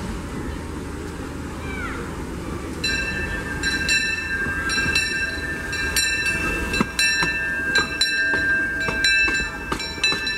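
Disneyland Railroad steam train, with locomotive #1 C.K. Holliday and its passenger coaches, rolling slowly past. From about three seconds in its steel wheels give a steady high-pitched squeal on the rails, with repeated clicks as the wheels cross the rail joints.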